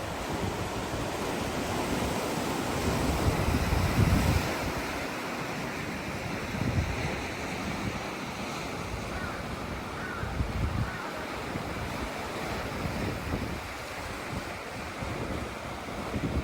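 Sea waves washing onto the shore in a steady surf, swelling loudest a few seconds in, with wind buffeting the microphone.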